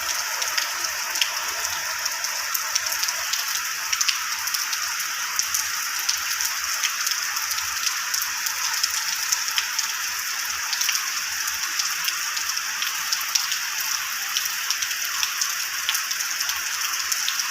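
Steady, heavy rain falling continuously, an even hiss dotted with many sharp ticks of single drops striking.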